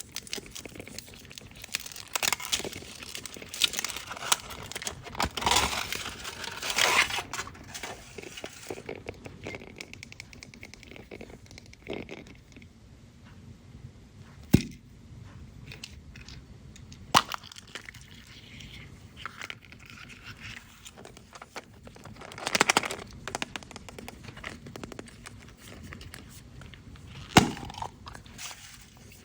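Candy wrappers, the foil of chocolate eggs, being crinkled and torn open in a quick run of bursts, then a few single sharp snaps and another short spell of crinkling.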